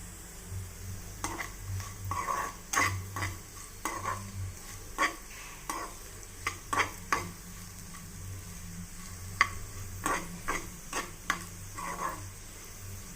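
Potatoes being stirred in a frying pan, the cooking utensil scraping and knocking against the pan at an irregular pace, over a sizzle of frying.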